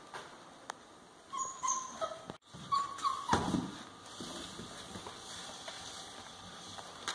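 Young Central Asian Shepherd puppy whimpering: short high whines in two pairs, about a second and a half in and again around three seconds in, followed by a brief low scuffle.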